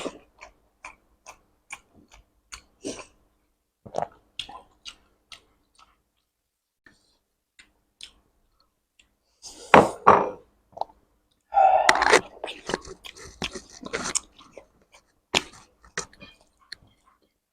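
Close-miked mouth sounds of a person eating: wet chewing with short clicks and smacks. These fall quiet for a few seconds about midway, then come back denser and louder.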